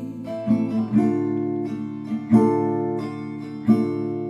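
Acoustic guitar strummed, a chord struck about every second and a half and left to ring, with no singing over it.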